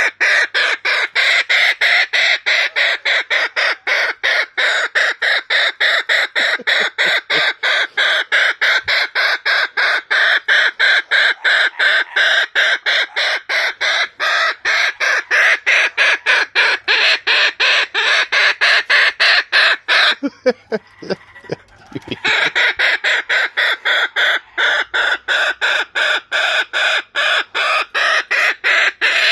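Kookaburra calling in a long, steady run of rapidly repeated notes, about four a second. The notes break off for a couple of seconds about two-thirds of the way through, then resume.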